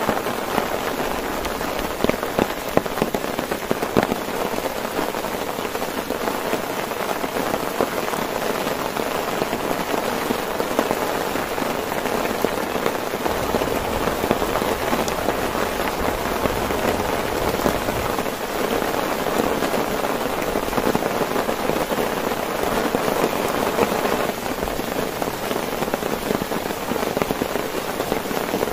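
Heavy rain falling on a tent: a steady, dense hiss with many sharp individual drop hits on the fabric.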